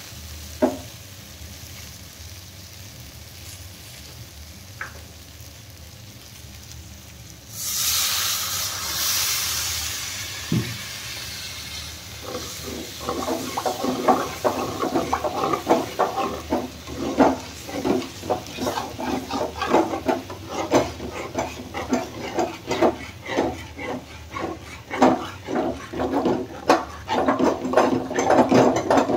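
Potato sabzi frying quietly in a metal kadai, with a few spatula taps. About seven and a half seconds in, water poured into the hot pan hisses loudly and fades over a few seconds as the gravy forms. From about twelve seconds a perforated metal spatula stirs and scrapes through the wet potatoes in quick, repeated strokes.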